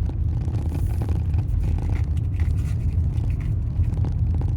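Steady low rumble of a vehicle's engine and tyres heard from inside the cab while driving slowly, with faint, irregular clicks scattered throughout.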